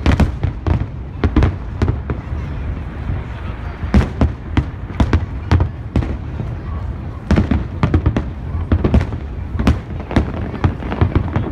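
Aerial fireworks bursting: many sharp bangs in quick, irregular succession over a low rumble.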